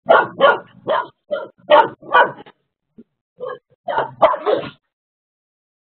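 A dog barking and yipping in quick short barks, about eight in the first two and a half seconds, then a brief pause and a second flurry before it stops. This is play barking from a dog trying to get another dog to play.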